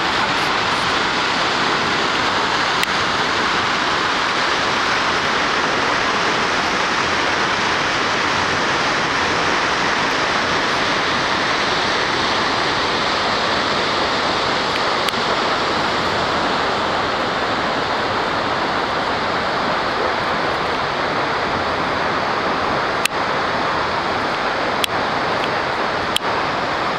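Steady roar of rushing water from a waterfall and river cascades, unchanging throughout, with a few brief clicks in the last few seconds.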